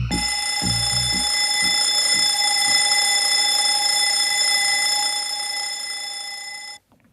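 A steady, high ringing tone with several overtones that holds level, sags slightly, then cuts off suddenly near the end. Low pulsing beats die away under it in its first second or so.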